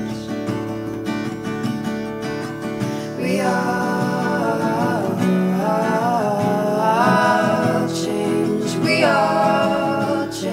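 Acoustic guitar strumming, with a woman singing long, wavering notes from about three seconds in.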